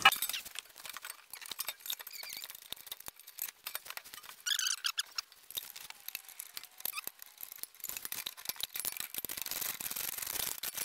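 Faint, scattered clicks and scrapes of a steel bolt and hitch bracket being handled as a bolt is threaded by hand into the underside of a minivan's frame. A brief high chirp comes about four and a half seconds in.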